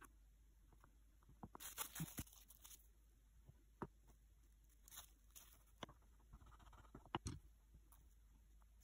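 Faint handling sounds: a plastic sheet crinkling for about a second near the start, then a few light, separate taps and clicks of fingers and a tool on a cutting mat.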